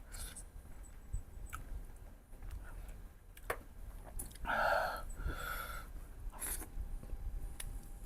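Close-miked eating sounds: chewing of mutton ribs, with scattered small clicks and one louder, half-second mouth sound about four and a half seconds in.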